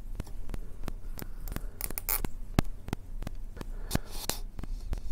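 Irregular small clicks and taps, several a second, with brief scrapes about two seconds in and again about four seconds in. This is the sound of hands working the TPU antenna mount and antenna parts into place on an FPV quadcopter frame.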